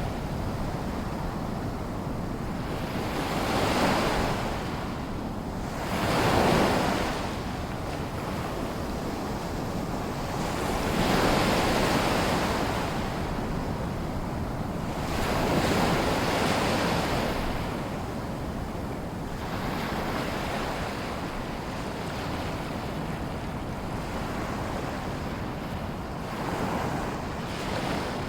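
Small waves in a sea lagoon washing in, a steady wash of water with a swell every few seconds, some louder than others.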